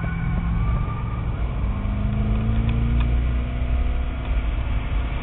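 2005 Corvette C6's 6.0-litre LS2 V8 heard from inside the cabin while driving at speed, with road noise. The engine note rises slowly from about two seconds in as the car accelerates.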